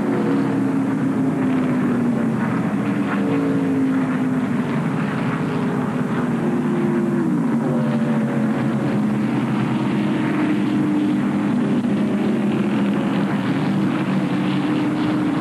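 NASCAR Winston Cup stock cars' V8 engines droning as the field runs past on the track, with the pitch of passing cars dropping about seven seconds in.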